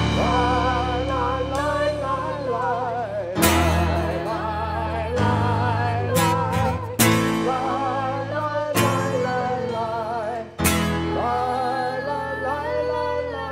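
Live Messianic worship music: a sung melody with vibrato over strummed acoustic guitar, with sharp strums every couple of seconds.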